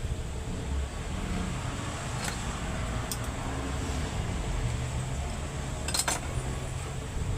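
A machine running steadily with a low rumble, with a few sharp metallic clicks or clinks: one about two seconds in, another about three seconds in, and a double one near the end.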